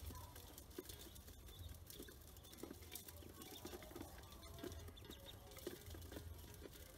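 Faint, irregular tapping and pattering of ducklings' bills and feet on an aluminium basin as they peck at feed.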